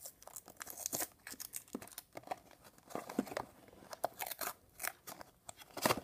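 Clear plastic shrink-wrap being picked at and peeled off a small cardboard box, crinkling and tearing in quick, irregular crackles.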